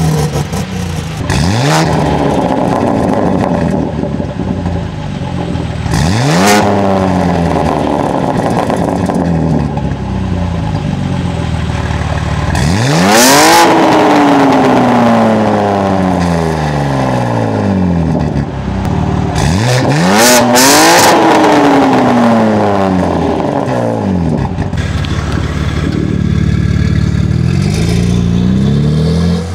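BMW G80 M3's twin-turbo inline-six revved at a standstill through a titanium valved aftermarket exhaust. There are about five sharp blips that rise and fall back to idle; the early ones have the exhaust valves closed and the later, louder ones have them open, including two close together. Near the end the car pulls away with the valves closed.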